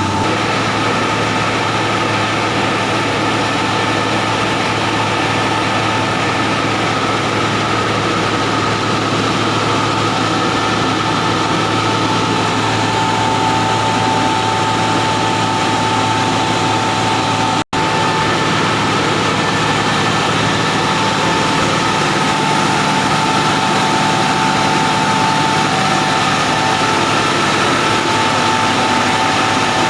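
Reheating furnace plant running steadily: a continuous loud roar of blowers and burners with a constant whine, broken by an instant's dropout about two-thirds of the way through.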